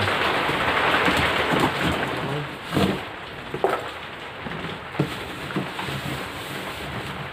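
Cardboard box being opened: a dense scraping and tearing of tape and flaps for about the first three seconds, then quieter rustling with a few short knocks as the plastic-wrapped contents are handled.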